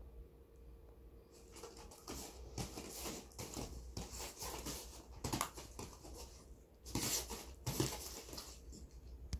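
West Highland White Terrier wriggling and rolling on a vinyl play mat, its body scuffing and rustling against the mat in irregular bursts that begin about a second in.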